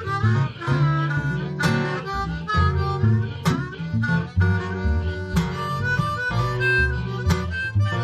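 Blues harmonica playing a lead line with bent notes over acoustic guitar accompaniment.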